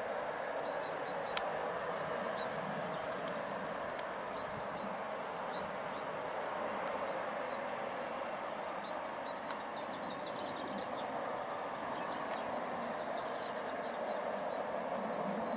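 Steady engine noise from an airfield tow tug pulling a large trailer, with small birds chirping now and then, high and short.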